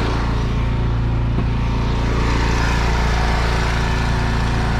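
Pressure washer running: the steady drone of its small engine under the hiss of water spraying from the wand.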